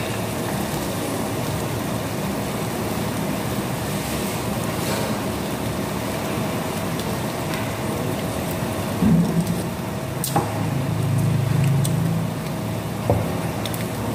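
Steady restaurant background noise: a continuous hiss with a faint hum, broken by a few light clicks and knocks in the second half.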